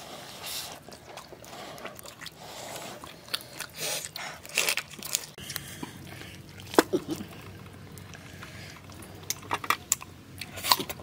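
Close-up eating sounds of cooked chicken being bitten, torn apart and chewed, with scattered sharp crunches, the loudest about two thirds of the way in and a cluster near the end.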